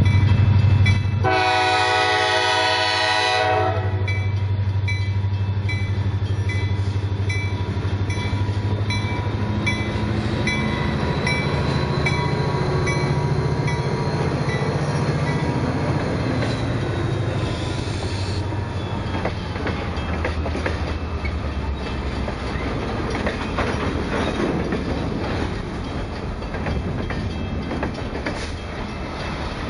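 EMD GP40 diesel locomotive passing close by with its engine drone strong, sounding one long horn blast about a second in, while a grade-crossing bell dings steadily. Once the locomotive is past, the engine fades and the freight cars roll by with wheels clattering over the rail joints.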